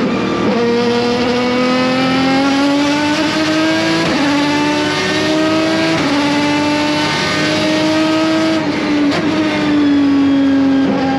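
Aston Martin DBR9 race car's 6.0-litre V12 running hard under load. Its pitch climbs steadily and drops sharply at gear changes, about four and six seconds in, then falls away near the end as it slows.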